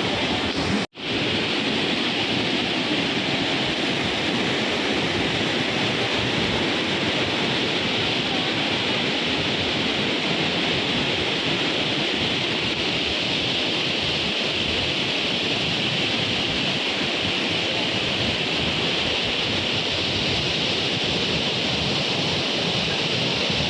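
Waterfall water rushing steadily, a continuous loud roar of falling water, broken for an instant about a second in.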